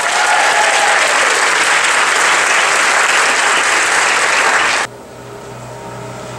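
Theatre audience applauding loudly, cut off abruptly about five seconds in, after which only a quieter low hum remains.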